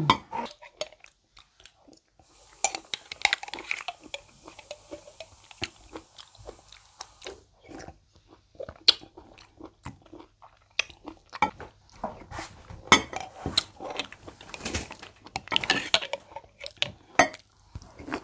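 Close-up eating: chewing and crunching halo-halo with crushed ice, with a metal spoon clinking against a glass jar.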